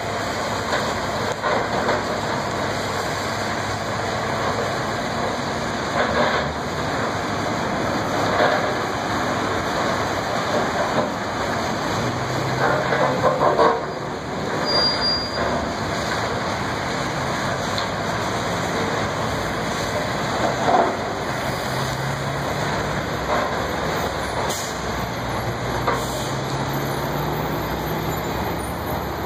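Diesel engine of a long-reach demolition excavator running and revving, its pitch climbing near the end, over a steady rushing noise. Several crunches and crashes of breaking masonry and falling debris come as the machine pulls the brick building apart, the loudest cluster about halfway through.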